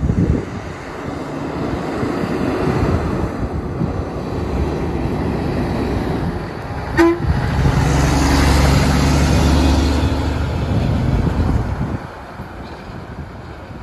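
Diesel semi truck pulling a scrap-metal trailer drives past, loudest as it goes by, with a short horn toot about seven seconds in. The sound drops off suddenly near the end.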